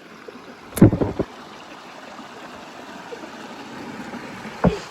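Flowing stream water making a steady rushing noise, with a sharp knock and short low rumble about a second in and a brief low thump near the end.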